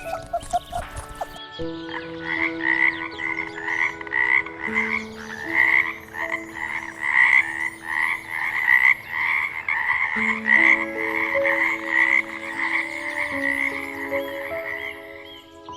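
Frog croaking in a steady run of short, evenly repeated calls, about two to three a second, starting about a second and a half in. Background music with long held notes plays underneath.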